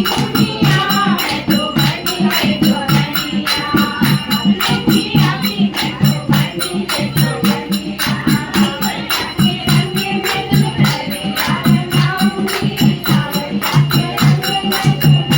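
Kumauni folk dance song playing: singing over a steady, quick percussion beat.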